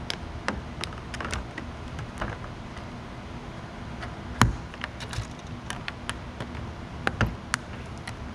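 Irregular close-up clicks, taps and rubbing from nitrile-gloved hands handling a small action camera and its mount, with the sharpest knock about halfway through. A steady low hum runs underneath.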